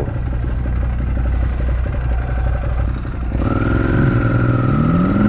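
Ducati Monster 821 V-twin running at low revs with a steady low rumble; about three and a half seconds in, a higher engine note sets in and then climbs in pitch as an engine accelerates.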